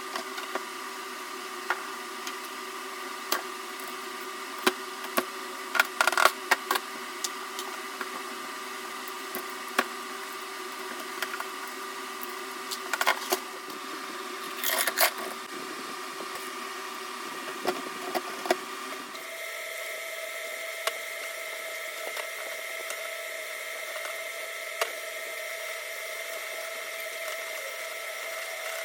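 A small electric motor runs steadily with a constant hum, with scattered clicks and knocks of handling. About 19 seconds in, the hum steps up to a higher pitch.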